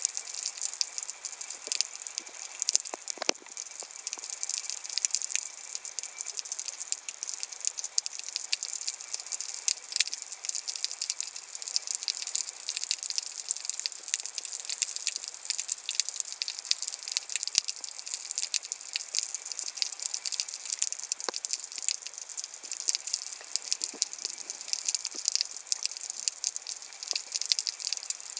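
Underwater ambience over a rocky seabed: a dense, steady crackle of tiny clicks and hiss, with a few louder single clicks.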